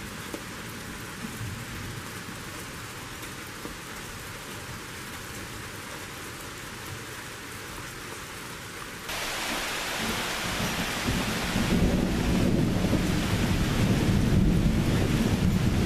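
Steady rain falling. About nine seconds in it turns suddenly louder, and a low rumble of thunder builds and rolls on through the second half.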